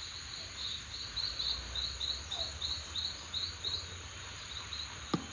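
Insects chirping in an even rhythm of about three high chirps a second, over a constant high-pitched insect drone. A single sharp click comes near the end.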